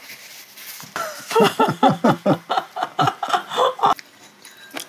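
A person laughing in a run of short chuckles, starting about a second in and lasting about three seconds.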